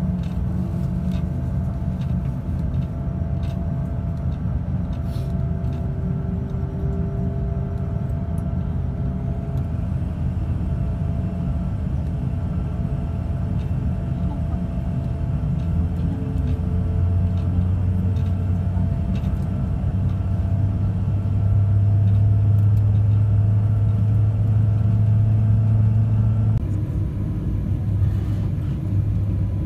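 Jet airliner cabin noise while taxiing: a steady low rumble of the engines and airframe with a constant hum, the low hum swelling louder for about ten seconds partway through and then dropping suddenly.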